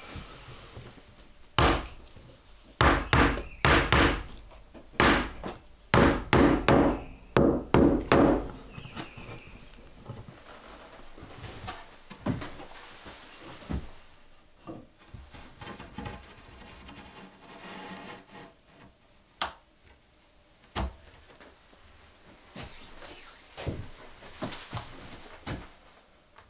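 Hammer blows on wood, nailing a wooden shelf and its brackets to a pine-board wall: a rapid run of a dozen or more strikes in the first several seconds, then occasional single knocks and quieter handling of the wood.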